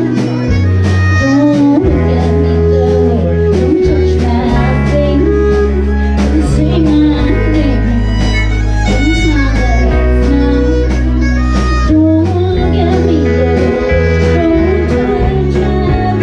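Live country-folk band playing: bowed fiddle and acoustic and electric guitars over bass notes and a steady beat.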